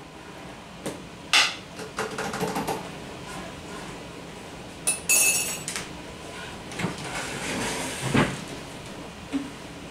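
A spoon and dishes clinking and knocking in kitchen handling: two sharp ringing clinks, about a second and a half in and again about five seconds in, among softer knocks and rattles, with a duller thump near the end.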